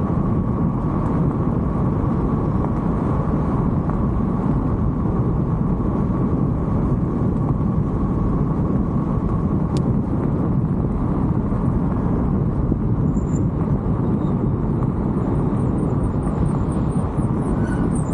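Steady wind and road noise on the microphone of a moving e-bike, with a faint steady whine in the first half and a single sharp click about ten seconds in.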